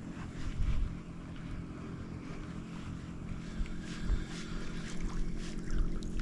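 Small boat's motor running steadily with an even low hum, with gusts of wind buffeting the microphone now and then.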